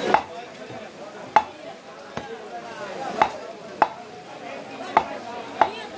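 A large knife chopping a grass carp crosswise into steaks on a wooden log chopping block. There are seven sharp knocks, roughly a second apart, as the blade cuts through the fish into the wood.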